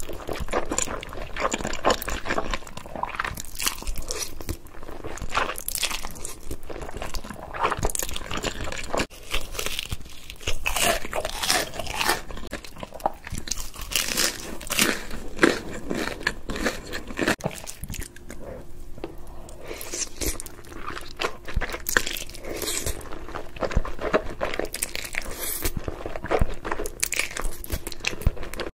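Close-miked eating sounds: crunchy bites into breaded fried food and glazed fried chicken, with chewing and noodle slurping, a dense run of irregular crisp crunches throughout.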